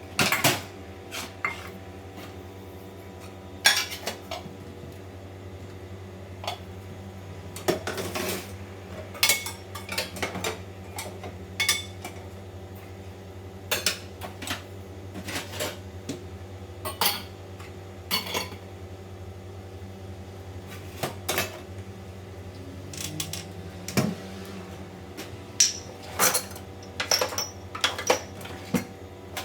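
Dried dishes and cutlery being handled and put away: repeated clinks and clatters of plates, pots and spoons set down, some ringing briefly, over a steady low hum.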